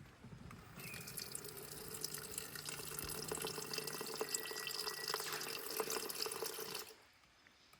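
Water being poured steadily into a container for about six seconds, stopping shortly before the end.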